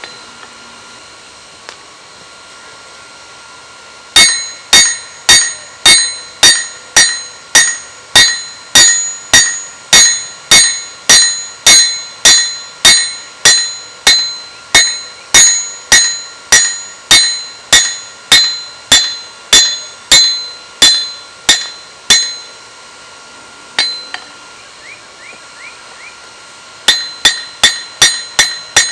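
Blacksmith's hand hammer striking a steel spearhead on an anvil, about two blows a second, each blow ringing. The blows start a few seconds in, stop for a few seconds about three-quarters through, then pick up again faster near the end on the freshly heated, glowing steel.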